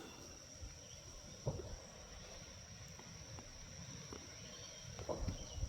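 Insects outdoors, probably crickets, keeping up a faint, steady, high-pitched drone, with a few soft clicks near the start and near the end.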